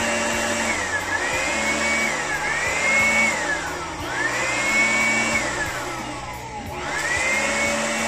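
Electric blower spinning up and winding down in repeated short runs as it is switched on and off: a whine that climbs to a steady pitch, holds for a second or so, then falls away, four times over, with a fifth run starting near the end.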